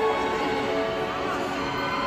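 Slow pop ballad played live, the band holding long sustained notes near the song's end.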